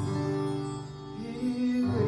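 Soft background music of sustained held chords that shift to a new chord partway through.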